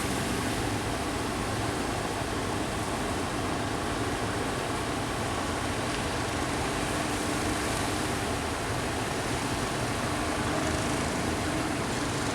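Steady roar of sea surf and wind, with a faint motor hum underneath.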